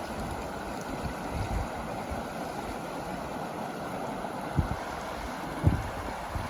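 River water flowing steadily over the streambed, a constant rushing. Two short low thumps come through near the end.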